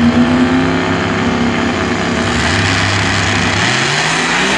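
Drag race car engines running at the starting line, holding steady, with one engine's pitch rising near the end as it is revved up.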